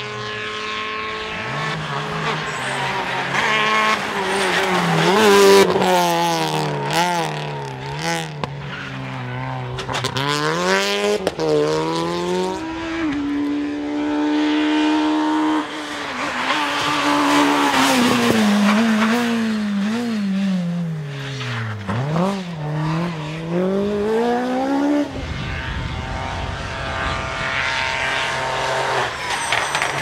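Rally car engines driven hard through a run of bends, revving up through the gears with quick drops in pitch at each shift and falling away as the driver lifts for the corners. The sound changes abruptly twice as a different car takes over, the last one coming with a low rumble.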